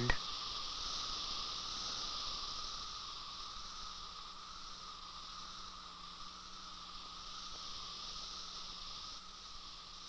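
Chorus of male periodical cicadas, their mating call: a steady droning buzz in two pitch bands, one middle and one high, that slowly fades.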